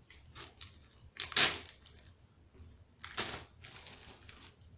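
Plastic zipper bag being handled and crinkled, with a loud rustle about a second in and another about three seconds in, among lighter rustles.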